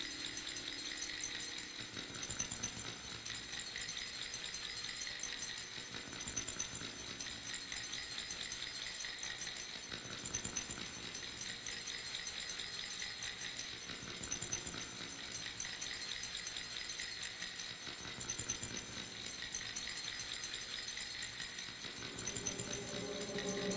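A dense, steady rattling and hissing texture of experimental electronic music, made of fine rapid grains, mostly high in pitch. Near the end, low pitched tones swell in and it grows louder.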